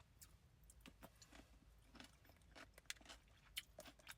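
Faint chewing: irregular soft crunches and mouth clicks of someone eating, with a slightly louder one about three and a half seconds in.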